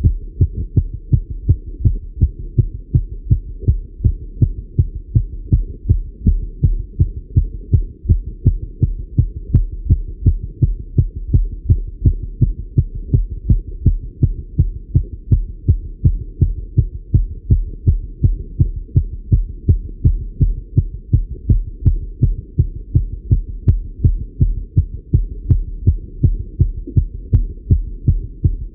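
A man's heart beating fast and steadily through a stethoscope chest piece, its rate raised by cycling.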